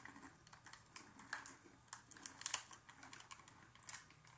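Someone chewing a hard, crunchy chocolate-flavoured snack: faint, irregular crisp crunches.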